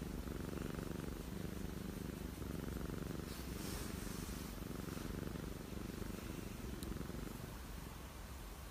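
Domestic cat purring steadily while its cheek is being rubbed, a sign that it is content.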